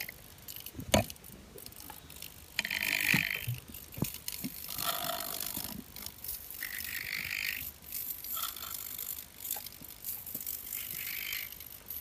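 Handling noise from a quadcopter's frame and wiring being moved about by hand: light clicks and rattles, with several brief higher-pitched bursts, each under a second long.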